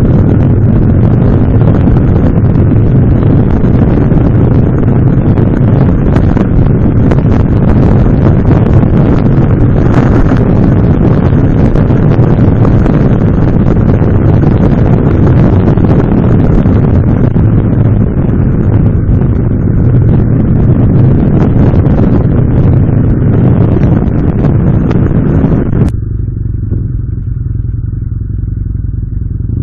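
Heavy wind rushing over the microphone of a camera mounted on a moving motorbike, with the engine's steady low drone underneath. About 26 seconds in, the wind noise cuts away sharply as the bike slows, leaving mostly the engine.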